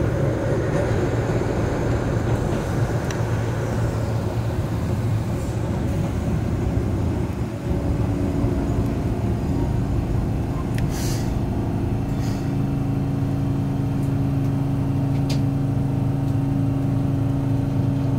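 Keihan Ishiyama Sakamoto Line tram heard from the cab: a running rumble of wheels on rail as it comes into the station, easing off about seven or eight seconds in, then a steady hum while it stands at the platform, with a few sharp clicks.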